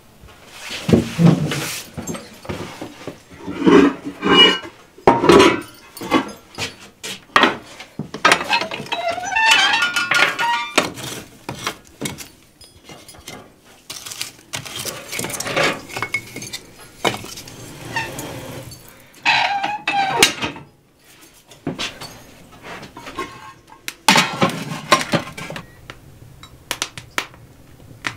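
Kitchen clatter at a wood-burning stove: irregular metal knocks, clinks and scrapes from the firebox being tended and from pots and a pan being handled on the stovetop.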